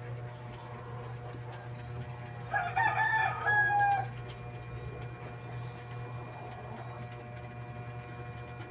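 A rooster crows once, a stepped call lasting about a second and a half, starting a little over two seconds in, over a steady low hum.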